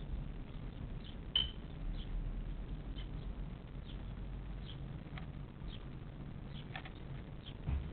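Scattered, short, high squeaks from young animals in a nest of grass and feathers, over a steady low hum. A sharp tick comes about a second and a half in, and a dull knock near the end.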